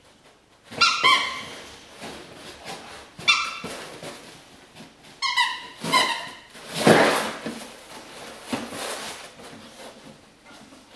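A squeaky dog toy squeaked about four times by a boxer dog, each squeak short and high-pitched. These are followed by a loud bark about seven seconds in and a softer bark nearer nine seconds.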